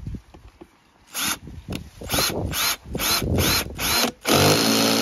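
Power screwdriver driving a screw into the door panel: about a second in, the motor is pulsed in half a dozen short bursts, then run continuously from near the end as the screw goes home.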